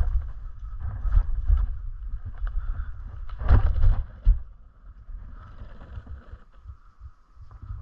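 Wind and motion rumble on the microphone while riding a one-wheeled electric board over a dirt trail. About three and a half seconds in comes a short, loud cluster of knocks and scuffs as the rider steps off, after which the sound drops much quieter.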